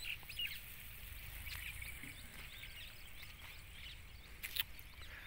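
Faint bird calls and chirps in open farmland over a steady low rumble, with a single short click about four and a half seconds in.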